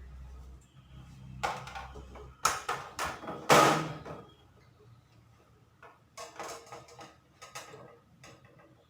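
Knocking and rattling as a metal refrigerator condenser pipe is handled and fitted, in two clusters with the loudest knock about three and a half seconds in. A low hum runs under the first two seconds or so.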